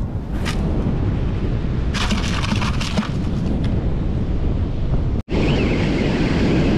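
Strong wind buffeting the microphone over the steady roar of ocean surf. A burst of crackling rustle comes about two seconds in, and the sound drops out for an instant about five seconds in.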